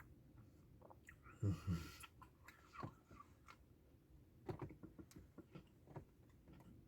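Quiet eating sounds: chewing soft-serve ice cream with frosted animal cookie pieces, with small clicks of a spoon and mouth noises, and a couple of short low sounds about a second and a half in.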